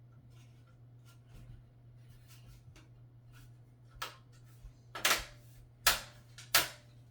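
Thin stamped-metal I/O shield being pressed back into a PC case's rear opening: light handling ticks, then four sharp snapping clicks in the last three seconds as its edges click into place.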